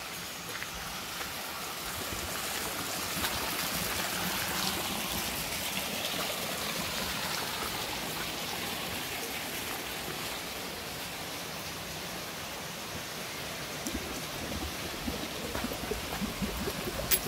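Steady rush of flowing water from a stream. From about three-quarters of the way through, short sharp crunches of footsteps on a leafy dirt path are added.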